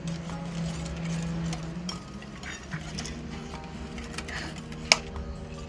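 Wire whisk beating eggs into creamed butter and sugar in a bowl: soft scraping with occasional clicks of the wires against the bowl, the sharpest about five seconds in.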